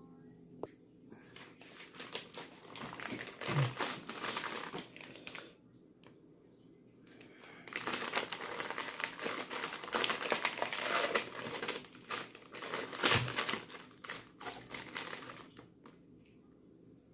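Plastic snack wrapper of a biscuit packet crinkling and rustling as it is opened and handled, in two long bouts, the second starting about seven seconds in.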